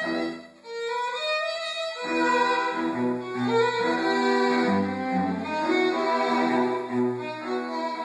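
String trio of violin, viola and cello playing a tango. After a brief break about half a second in, one instrument carries a rising line alone for about a second, then the whole trio comes back in with the cello's low notes underneath.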